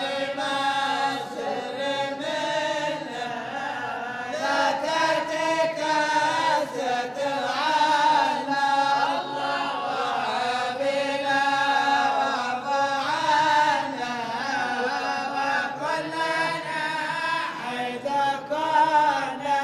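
A group of men chanting a Sufi devotional ode (qasida) together in long, drawn-out melodic phrases, with no instruments.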